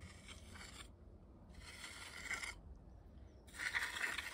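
Hand magnesium float scraping over fresh, wet concrete in three strokes, each about a second long.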